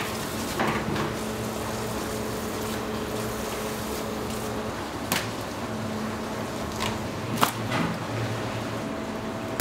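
Steady background noise with a faint hum, broken by a few sharp clicks, two of them standing out about five and seven and a half seconds in.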